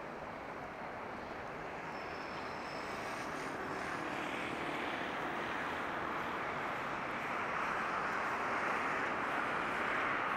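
Broad rushing noise of passing vehicle traffic, growing steadily louder.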